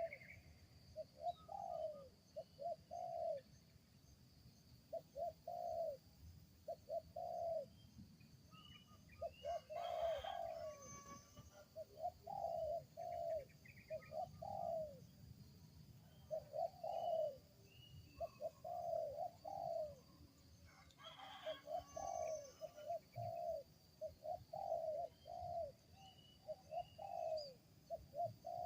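Wild spotted dove (tekukur) cooing: short, low coo notes repeated in clusters of two to four, over and over. Its call is an unusual one, the strange voice the finder was after.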